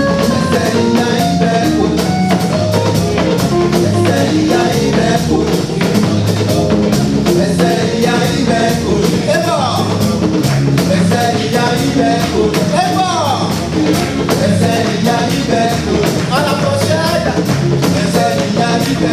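Band music with a fast, steady drum-kit beat and singing.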